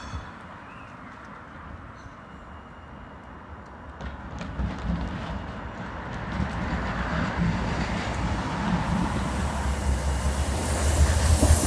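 Stadler Class 399 Citylink tram-train approaching on street track, its running noise rising steadily from about four seconds in as it nears. Near the end a low steady hum and the hiss of wheels on the rails grow loud as it comes close.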